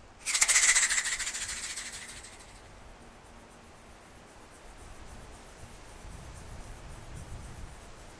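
Dragonfly wings whirring as it lifts off and resettles: a sudden, rapid fluttering rasp that starts about a quarter second in and dies away over about two seconds.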